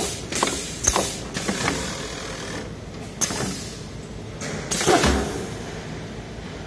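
Automatic radiator tank and header plate clinching machine at work. A rapid series of sharp mechanical clicks comes in the first couple of seconds, then quieter running, then a louder clunk with a short rush of noise about five seconds in.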